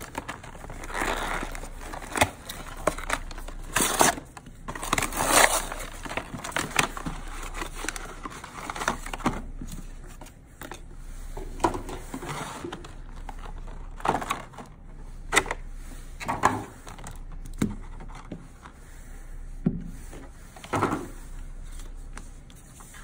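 Cardboard box and clear plastic tray of a trading-card guild kit being unpacked by hand: irregular rustling, crinkling and scraping, with short sharp clicks and taps as pieces are pulled out and set down.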